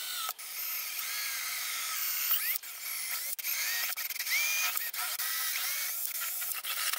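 Cordless drill boring a hole into a carbon fibre part. It runs in several short trigger pulls with brief stops between, and the motor whine rises each time it spins up.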